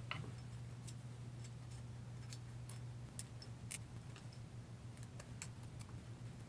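Faint, irregular small metal clicks and taps from AR-15 bolt carrier parts being handled and worked with an Allen wrench to get out the firing pin's cotter pin.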